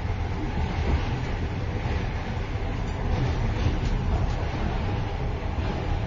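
Inside the vestibule of a moving train: steady low rumble of the wheels on the track with loose rattling and clatter of the car's fittings.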